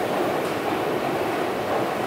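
Steady running noise of a subway train in the station, an even rush with no separate clicks or tones.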